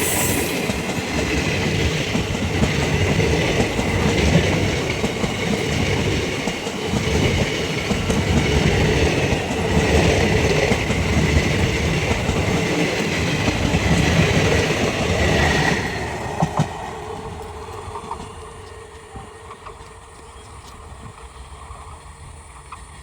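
An Indian Railways passenger train passing at speed, its wheels and coaches rattling on the track; the noise dies away about sixteen seconds in as the train moves off.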